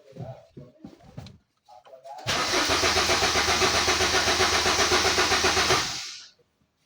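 Diesel car engine cranking on its starter motor for about three and a half seconds with a fast, even pulsing, then stopping without firing: a crank-but-no-start, here after a rat-chewed fuel pump wire was repaired.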